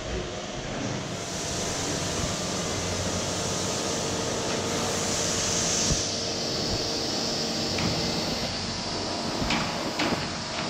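Steady hum and hiss of workshop machinery in a steel fabrication shed, with a few sharp knocks near the end.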